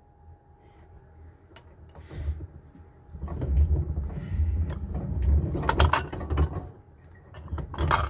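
A hand-cranked Vevor rolling mill passes a silver bar through its rollers: a low grinding rumble with gear clicks, starting about two seconds in and lasting about four seconds. A few small clicks come before it, and a sharp clank comes near the end.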